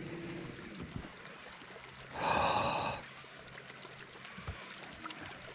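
A person's frustrated, breathy sigh about two seconds in, lasting under a second, over faint water sounds.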